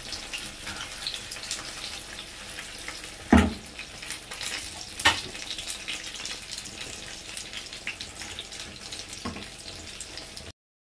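Pot of pork rib soup simmering in a metal pot, with steady faint bubbling and crackling. There is a louder knock about three and a half seconds in and another about five seconds in. The sound cuts off just before the end.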